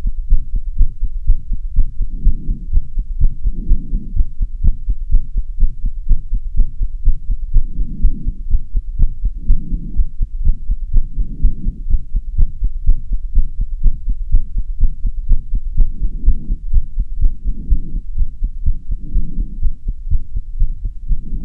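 A person's fast heartbeat after half an hour of stair running: rapid, even thumps several times a second, with heavy breathing swelling in and out every second or two.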